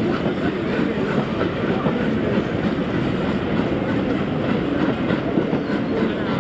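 Steam-hauled train of passenger coaches passing close by, a steady rumble of the coach wheels running over the rails.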